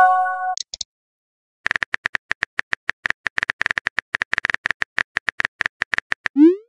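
Texting-app sound effects: a short chiming message tone, then a run of rapid keyboard typing clicks, several a second, for about four and a half seconds, and a quick rising swoop of a message being sent near the end.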